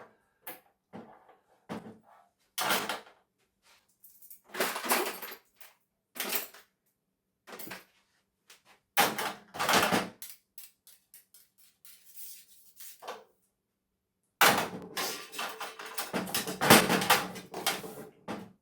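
Small metal and plastic television parts being handled and set down, clattering and knocking on and off, then a longer run of rattling and clinking for the last few seconds.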